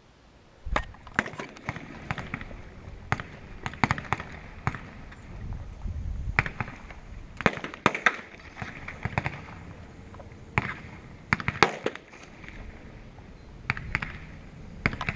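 Pistol shots from several shooters firing on an outdoor range, sharp cracks coming at irregular intervals, sometimes two or three close together, each with a short echo.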